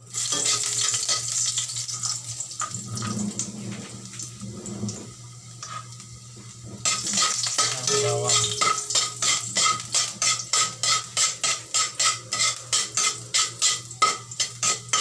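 Chopped garlic sizzling in hot oil in an aluminium wok while a metal spatula scrapes and taps the pan. From about seven seconds in the sizzle grows louder and the spatula strikes come quickly and evenly, about three a second.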